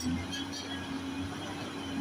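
Heavy diesel engine of construction machinery running at a steady speed, a constant low drone with no hammer blows.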